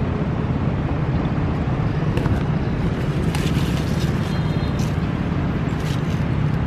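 Steady rumble of street traffic, with a few brief rustles of radish leaves being handled about halfway through and near the end.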